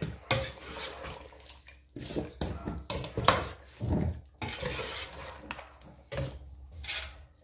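Metal ladle stirring a soupy curry in a stainless steel pot: irregular scraping and clinking of metal against the pot, in several strokes with brief pauses between them.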